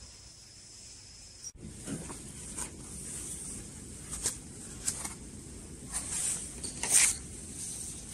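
Paper rustling as book pages and loose printed sheets are leafed through, with a run of short irregular page-turning rustles and the loudest flip near the end. Before that, about a second and a half in, a faint steady high tone with hiss cuts off abruptly.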